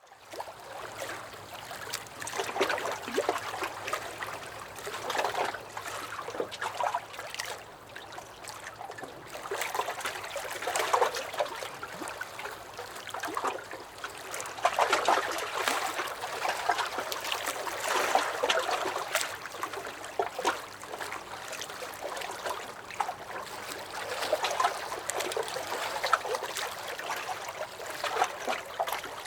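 Small lake waves lapping and sloshing against a dock, in irregular splashes every second or two.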